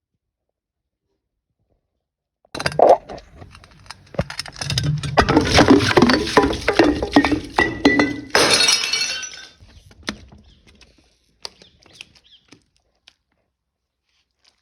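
Glass bottle breaking: a sharp smash about two and a half seconds in, then several seconds of dense crunching as the glass is crushed, ending in a few scattered clinks of shards.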